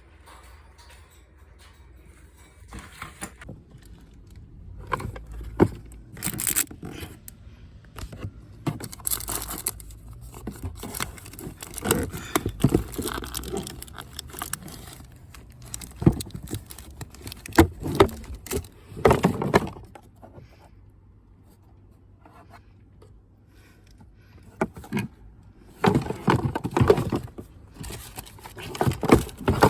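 Irregular scraping, clicking and rustling of objects being handled, with a faint steady low hum underneath through the first half.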